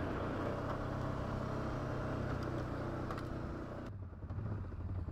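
V-twin ATV engine running steadily. About four seconds in, the higher part of the sound cuts away abruptly, leaving only the low engine note.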